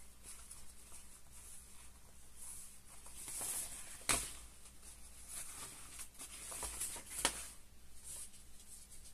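Crinkly rustling of synthetic raincoat fabric being handled and shifted, swelling about three seconds in. Two sharp clicks cut through it, the louder one about four seconds in and another about seven seconds in.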